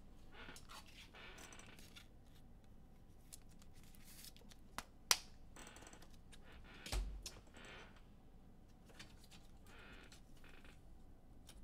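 Faint rustling and clicking of hands handling trading cards and packaging on a table, with a sharp click about five seconds in and a soft thump about seven seconds in.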